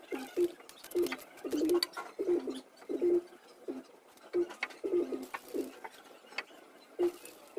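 Pigeons cooing over and over, short low notes about twice a second, with sharp clicks in between.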